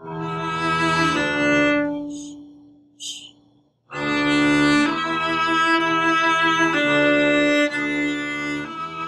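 Viola, bowed with a cello bow, playing slurred two-note pairs on the D string (open D and first-finger E). A slurred pair is followed by a short rest, then the notes carry on in steady slurs.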